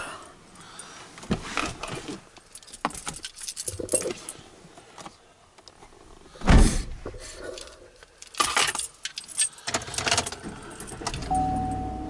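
Keys jangling and handling noises as someone settles into a vehicle's driver's seat, with one heavy thump about six and a half seconds in. About ten seconds in a low steady hum starts, and near the end a steady electronic chime sounds.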